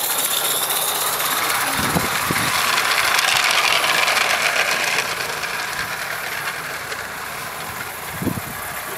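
16mm-scale live steam garden-railway locomotive and its wagons running past on the track. The sound is louder for the first five seconds, then drops off as the train moves away.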